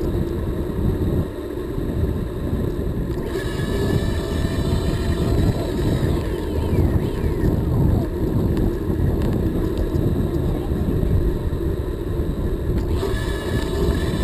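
Wind buffeting and road rumble on a moving camera's microphone, with city traffic passing.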